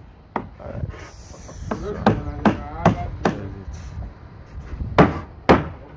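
Hammer blows on timber formwork boards, in quick runs of about two to three strikes a second with short pauses between runs: carpenters nailing the boards of the parapet formwork.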